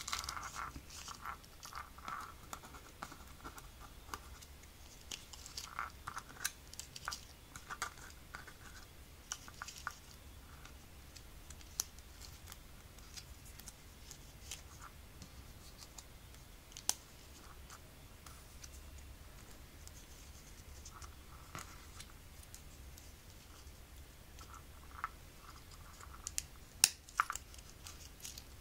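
Plastic guitar picks being picked up and slid into a small leather pick case: faint scratching and light clicks of plastic against plastic and leather, with a few sharper clicks, two close together near the end.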